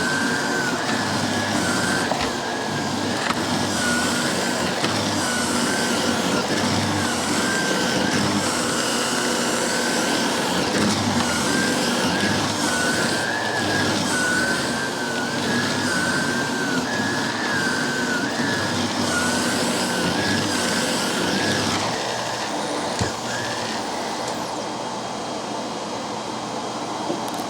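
Miele S5 Callisto canister vacuum cleaner running, its motor's high whine wavering up and down over a steady rush of air. About 22 seconds in the whine drops away and the rush goes on a little quieter.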